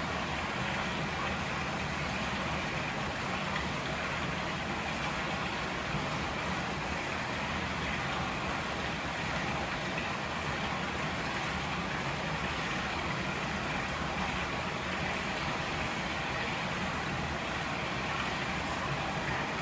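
A river rushing steadily: an even, unbroken sound of flowing water.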